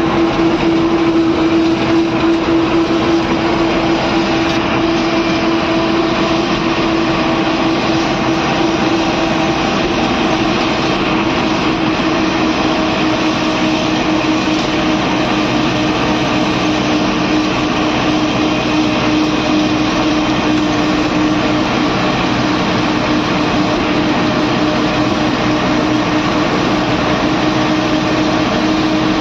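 Bus engine and road noise heard from inside the driver's cab while cruising on the highway: a loud, steady drone with a strong hum that sinks very slightly in pitch, over a constant rush of noise.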